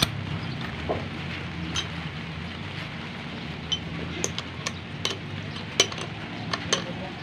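Scattered light metallic clinks and taps of spanners and engine parts being handled on the open crankcase of a Yamaha DT125 two-stroke engine during reassembly, coming more often near the end.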